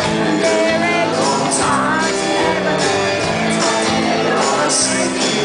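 Live rock band playing, with electric guitars, drums and a man singing at the microphone, heard from the audience.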